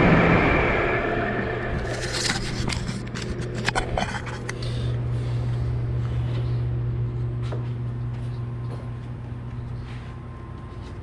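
Scrapes, clicks and knocks of MDF enclosure panels and clamps being handled, clustered about two to five seconds in, with a few fainter clicks later, over a steady low hum.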